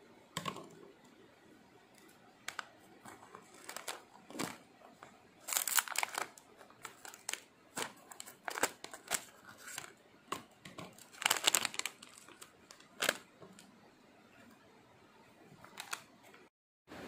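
Plastic LEGO minifigure blind bag crinkling in irregular rustles as it is handled and torn open, loudest about six and eleven seconds in. The sound cuts off suddenly near the end.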